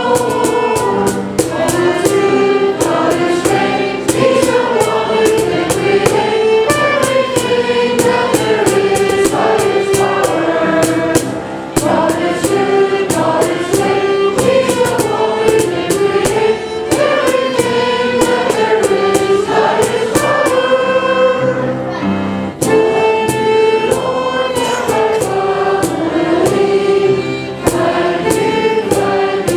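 A group of voices singing a worship song with instrumental accompaniment and a steady beat.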